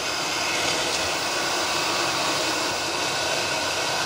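BWD5-40 stainless steel variable-speed booster pump running steadily under load at about a kilowatt, holding 4 bar, with its motor whine and the water rushing through its pipework.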